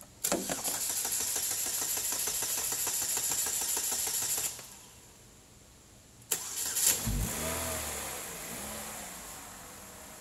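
Chevrolet Cobalt four-cylinder engine cranked by its starter with a steady rhythmic churn for about four seconds, then stopping; after a short pause a second crank fires it, the revs flare up and fall back, and it settles into a steady idle.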